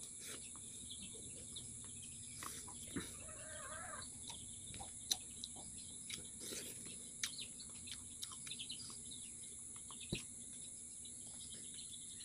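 Faint rural ambience: a steady high insect buzz with scattered bird chirps and a brief call about three seconds in. A few sharp clicks and taps, the loudest about five and ten seconds in, come from eating by hand at the table.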